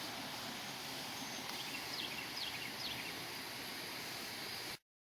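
Steady rush of a rippling creek, with a few short, high, falling bird chirps about halfway through; the sound cuts off abruptly near the end.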